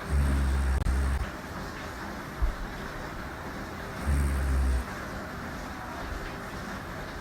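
A woman snoring in her sleep: two low, buzzing snores on the in-breath, about four seconds apart, each lasting about a second, over a steady background hiss. A brief knock sounds between them.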